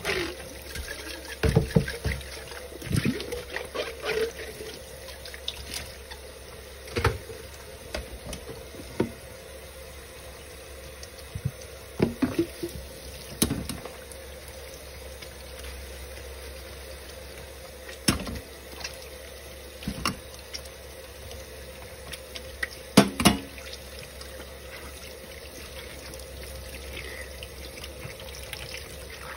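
Kitchen faucet running into a stainless steel sink of soapy dishes while plastic dishes are rinsed and scrubbed under the stream. Scattered knocks and clatters of dishes every few seconds, the loudest a pair about three-quarters through.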